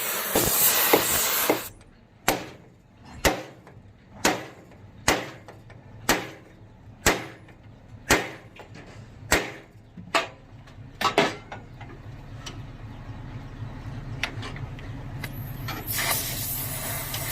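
A hiss of air stops, then a hammer strikes about ten times, roughly once a second. A low steady hum builds afterwards, and the hiss starts again near the end.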